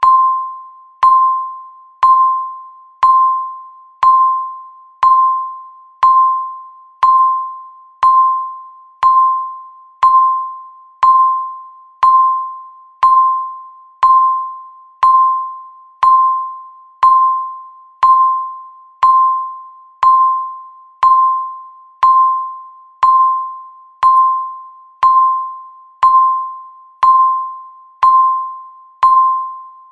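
Countdown timer's electronic tick: a short single-pitched ping once a second, each starting sharply and fading away before the next, keeping a steady one-per-second count.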